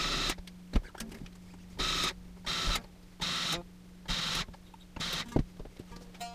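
Electric guitar tuning pegs being turned to bring the strings back up to pitch: about six short, scratchy bursts of winding, with a couple of sharp clicks. A steady low electrical hum runs underneath.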